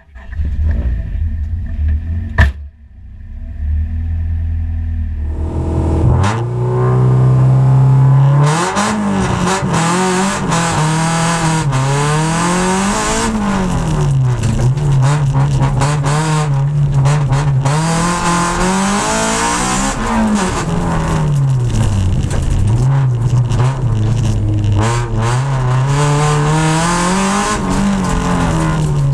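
Honda Civic EG6 rally car's engine, heard from inside the cabin. It runs at a steady low note with a sharp click a couple of seconds in, then from about five seconds in it revs up and is driven hard, the revs climbing and dropping again and again.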